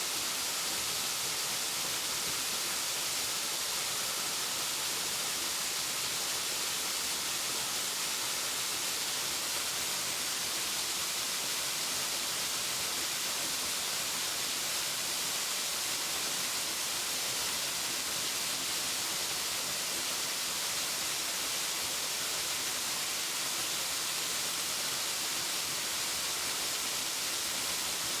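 Waterfall: a steady, unbroken hiss of falling and splashing water, strongest in the high range.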